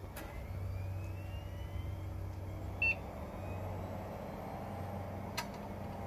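A Pentium D desktop PC powering on: a steady low hum, a faint whine rising in pitch over the first few seconds as it spins up, then a single short beep about three seconds in, the BIOS power-on self-test beep of a normal start. A sharp click comes about five seconds in.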